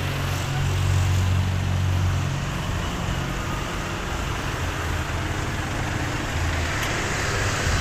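Stationary bus's diesel engine idling with a steady low hum, a little louder for the first couple of seconds.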